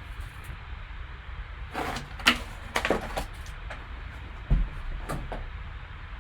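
Packaging being handled and opened: a quick run of sharp clicks and scrapes about two seconds in, then a dull thump a couple of seconds later and a few lighter clicks, over a steady low hum.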